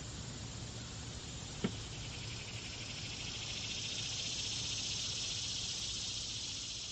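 Outdoor insect chorus: a high, even buzzing that swells about halfway through, over a steady low background rumble. A single sharp click about a second and a half in.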